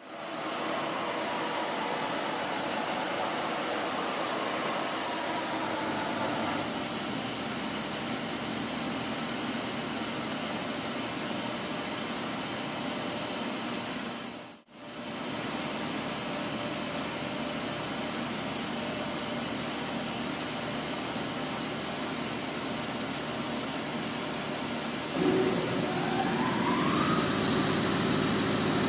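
1998 OKK PCV-55 CNC vertical mill running: a steady machine hum with a constant high whine, cut off briefly about halfway through. Near the end another whine rises in pitch as something on the machine speeds up, and the running gets a little louder.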